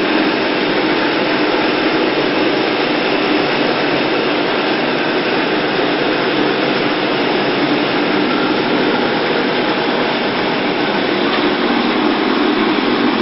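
A loud, steady machine noise with no change in pitch, which starts abruptly just before and fades out right after.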